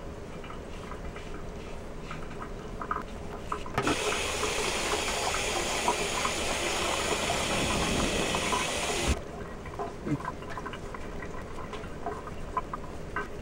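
Faint scratchy strokes of a safety razor cutting lathered stubble. A water tap runs in a steady hiss from about four seconds in for about five seconds and cuts off abruptly, after which the faint razor strokes carry on.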